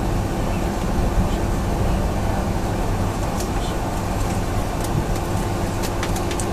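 Cabin noise of a Boeing 757-200 taxiing: the steady drone of the engines at taxi power with a constant hum running through it, and a few clicks in the second half.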